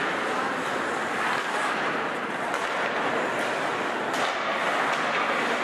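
Steady background noise of an ice hockey game in an indoor rink: crowd murmur mixed with the sounds of play on the ice, with no one sound standing out.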